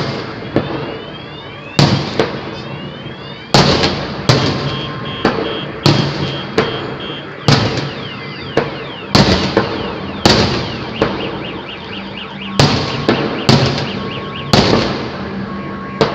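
Fireworks display: aerial shells bursting one after another, about one sharp bang a second and sometimes two close together, each followed by a trailing crackle.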